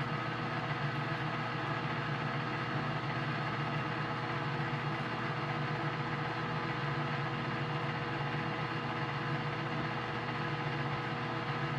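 Metal lathe running steadily with a constant hum, turning an aluminum bar while a scissor-style knurling tool's wheels roll against it in full contact.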